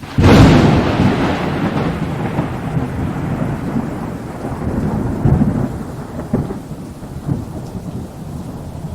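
Thunderclap: a sudden loud crack that rolls off into a long, slowly fading rumble, with a few smaller cracks later on.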